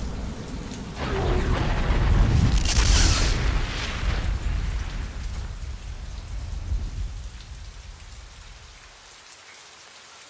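Low rumble with a hiss, swelling a couple of times in the first few seconds and then dying away to a faint hush about nine seconds in.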